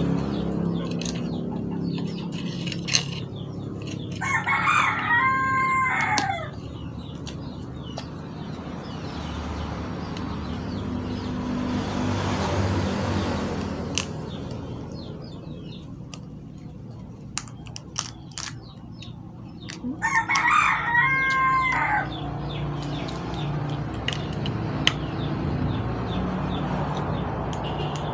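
A rooster crows twice, about four seconds in and again about sixteen seconds later; each crow is a drawn-out call that drops in pitch at the end. Between the crows come small clicks and cracks of crab shell being pulled apart by hand.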